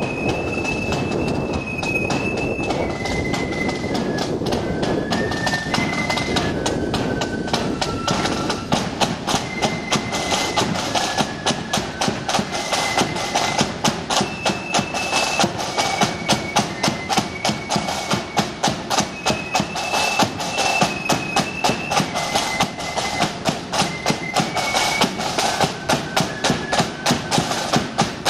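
Marching flute band playing a tune: a high flute melody over side drums. The drum beats grow louder and more regular about nine seconds in.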